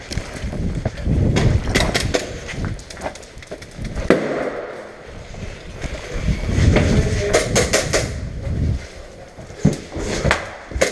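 Hurried footsteps and gear rattle of a player running, picked up by a body-worn camera, with heavy low rumble from movement and wind buffeting the microphone. Several sharp clicks and knocks come through, a quick run of them about two-thirds of the way in.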